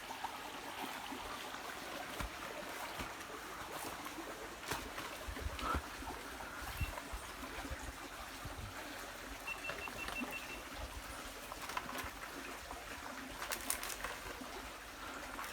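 Small creek trickling and running steadily.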